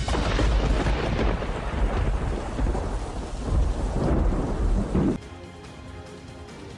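A loud, deep rumble with dense crackling noise, which cuts off abruptly about five seconds in to a much quieter steady hum.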